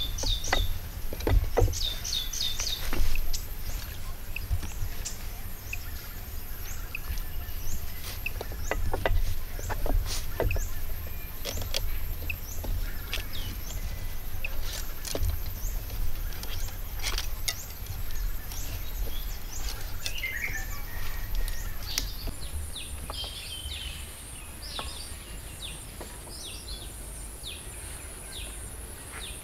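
Light, irregular knocks and clicks of wooden raft poles being handled and shifted, with birds chirping near the start and again later on.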